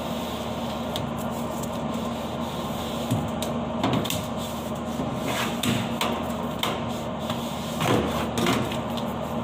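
Irregular scraping and knocking of a hand tool on a metal kitchen exhaust hood while grease is cleaned from the ducting, over a steady hum.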